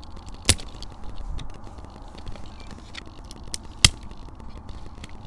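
Two sharp knocks about three seconds apart, the second the loudest, with a few faint ticks over a low rumble of wind on the microphone; no motor is running.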